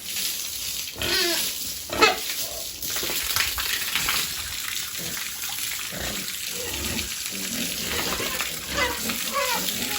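Water running or spraying in a steady hiss while piglets squeal briefly a few times, about one and two seconds in and again near the end.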